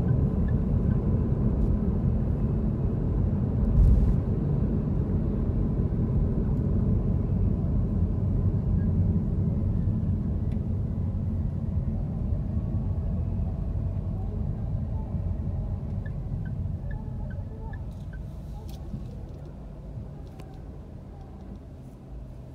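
Low road and engine rumble of a car heard from inside the cabin while it drives, fading gradually over the last several seconds as the car slows to a stop in traffic. A single thump about four seconds in.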